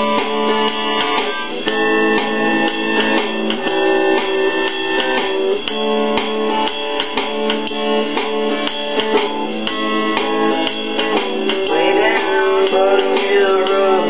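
Guitar being strummed in a steady rhythm of chords.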